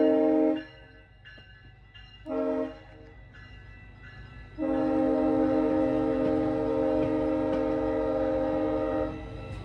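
GO Transit train's air horn sounding a chord of several notes. One blast cuts off about half a second in, a short toot follows around two and a half seconds, then a long blast of about four and a half seconds. A low train rumble runs underneath.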